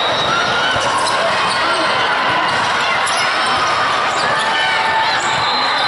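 Volleyball gym din: balls being struck and bouncing on a hardwood floor, echoing in a large hall over a steady background of voices.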